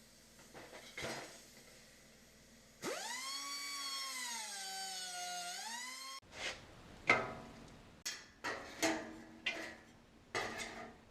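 A long wavering whine, dipping and then rising in pitch over about three seconds, then a run of sharp knocks and clanks from hand work on metal parts, the loudest about seven seconds in.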